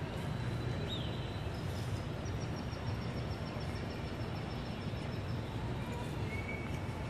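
Steady low outdoor background hum from a gathered crowd in a city plaza, with a few faint high bird chirps.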